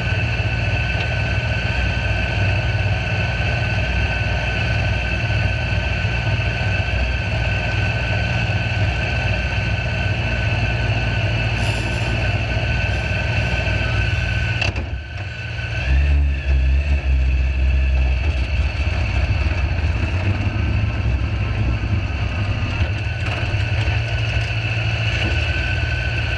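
Sand rail engine idling steadily with a constant high whine over it. About fifteen seconds in the sound dips briefly, then the engine note gets deeper and heavier for a couple of seconds as the rail creeps forward, before settling back to idle.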